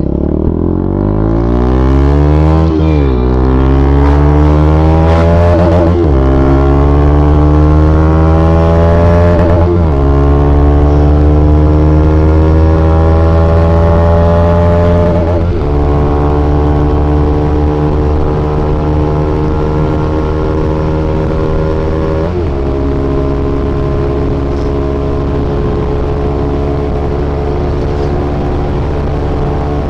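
Bajaj Pulsar NS200 single-cylinder engine with an aftermarket Akrapovic exhaust, accelerating through the gears. The pitch climbs and drops at each of five upshifts, which come quickly at first and then further apart, and it ends holding a steady note at cruising speed.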